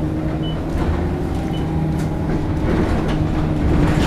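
Inside a moving bus: the engine's steady low drone with a hum in it, and a few light rattles.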